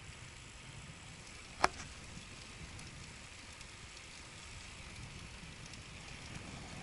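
Touring bicycle rolling along a paved road: a quiet, steady rolling noise with a low rumble, and one sharp click about one and a half seconds in.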